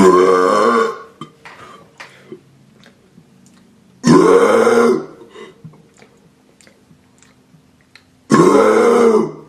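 A man burping loudly three times, each burp about a second long and about four seconds apart, its pitch rising and then falling.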